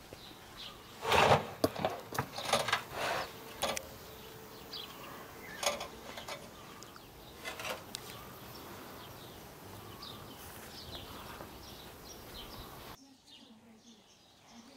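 Garden ambience with birds chirping and insects buzzing. A run of knocks and clatters comes in the first few seconds.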